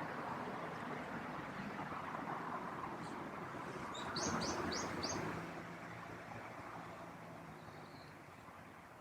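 Wind blowing over the microphone, swelling about four seconds in and easing off toward the end, with a small bird chirping four quick high notes about four seconds in.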